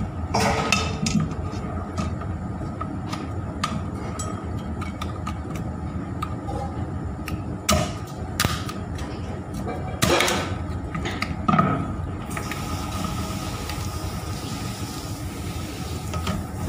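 Meat cleaver chopping through spiny lobster shell on a wooden cutting board: a series of sharp chops at uneven intervals, over a steady low hum.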